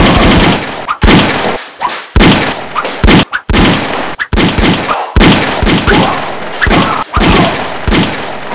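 A fast string of loud gunshot bangs, more than a dozen, each with a short ring after it, spaced about half a second to a second apart.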